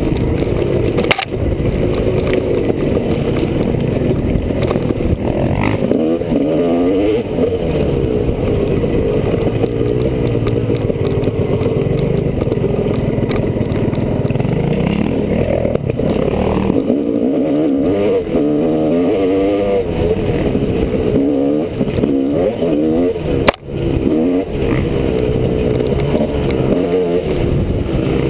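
Honda CR250R two-stroke dirt bike engine revving up and down on a trail ride, its pitch rising and falling again and again, with scattered clatter.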